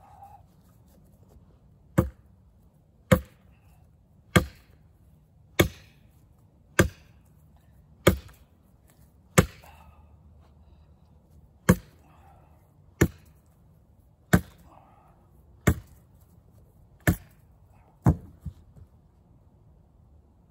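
An old wooden fence post struck against the end of a 17-pound steel San Angelo bar, hammering it through a round hay bale: thirteen sharp knocks about one and a quarter seconds apart, with a longer gap after the seventh.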